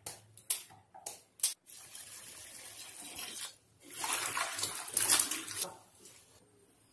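Hands washing cut cassava pieces in water in a steel bowl: sloshing and splashing in two spells, the second louder. Before that, four sharp knocks of pieces against the bowl.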